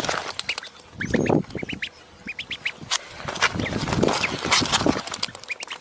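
Birds calling: a run of short high chirps, with louder, rougher calls about one second in and again around four seconds in.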